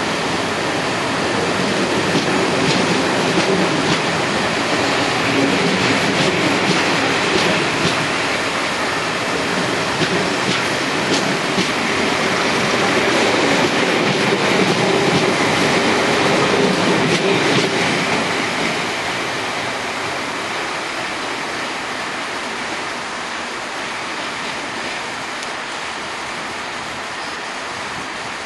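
Railway coaches rolling past over pointwork, their wheels clicking over rail joints. The sound eases off after about 18 seconds as the train draws away.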